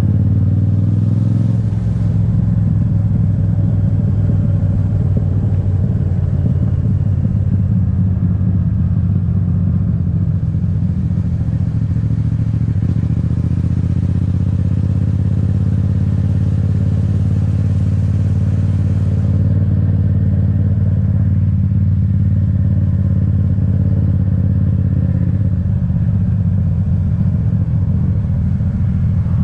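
Yamaha MT-07's parallel-twin engine running steadily as the motorcycle is ridden along.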